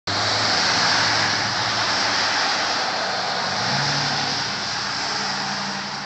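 A car driving past on a wet, slushy street: tyre hiss on the wet road over a low engine hum, easing off slightly as it moves away.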